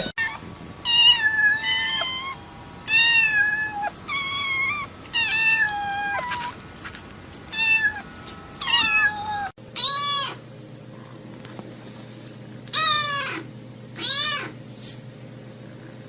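Kittens meowing over and over, short high-pitched calls that slide in pitch, sometimes two at once. A little past halfway the sound cuts to another recording with a low steady hum under fewer, spaced-out meows.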